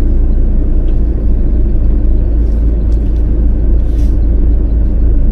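Camper van engine running with a steady low rumble as the van is driven slowly across a field, with a few faint ticks over it.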